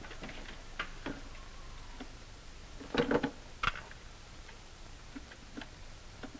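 Scattered clicks and knocks of an old wall telephone being handled: the receiver comes off its hook with a cluster of clicks about three seconds in, followed by a few lighter clicks. Under them is the steady hiss and hum of an old film soundtrack.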